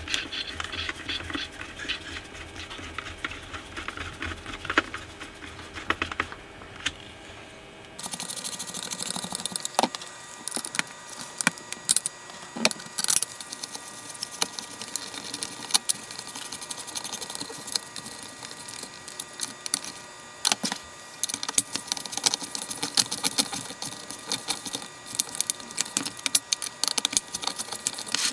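Screws being driven back into a Class D amplifier board: a run of light, irregular clicks and taps from the screwdriver and small metal parts. The background changes abruptly about eight seconds in.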